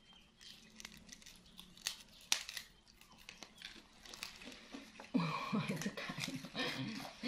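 Crinkling and crackling, with scattered sharp crackles. From about five seconds in, a soft voice sounds over it.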